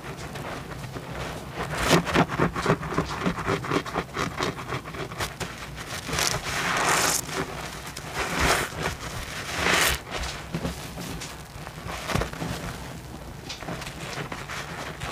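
A large sponge loaded with soapy suds squeezed and kneaded by hand: wet squelching and crackling foam. A run of fast crackling comes in the first few seconds, then several longer squishes as water and suds are pressed out.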